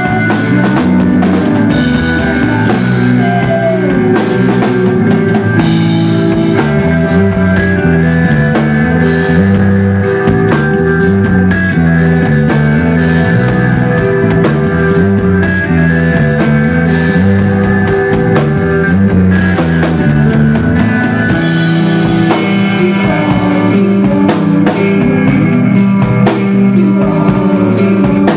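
Indie rock band playing live: drum kit keeping a steady beat under guitars and a bowed violin.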